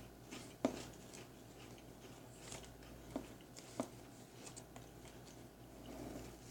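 Pringles potato crisp being bitten and chewed: faint crunching with a few sharp cracks.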